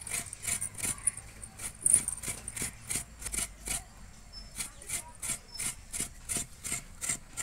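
Fresh coconut being grated by hand: the shell half is scraped against a bonti-style coconut scraper blade in short, rhythmic rasping strokes, about three a second, with a short pause a little past halfway.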